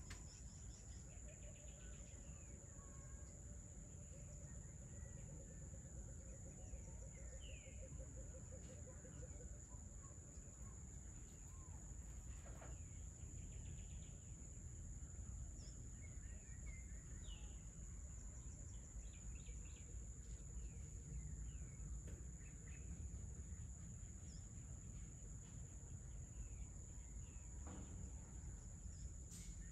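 Outdoor evening ambience: a steady, high-pitched insect drone with scattered bird chirps and calls, including a long wavering low trill in the first third, over a faint low rumble.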